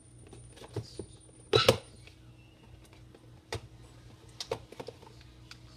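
Scattered light clicks and knocks of craft supplies being picked up and handled on a work table, the loudest a quick double knock about one and a half seconds in.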